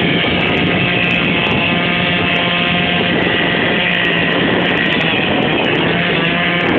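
An engine running steadily at one speed, with a rough, noisy sound and wind rumbling on the microphone.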